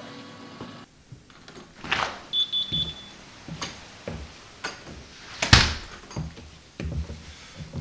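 A house's front door opening and shutting, with a loud thud about five and a half seconds in, and scattered knocks and footsteps around it. Three quick high electronic beeps sound a little after two seconds in.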